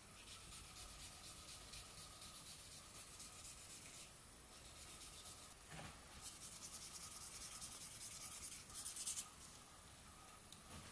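Fine #1000 waterproof sandpaper rubbed over a wet chestnut-wood spoon in quick back-and-forth strokes: a faint, scratchy hiss in two runs of a few seconds each, with a short pause and a light knock between them.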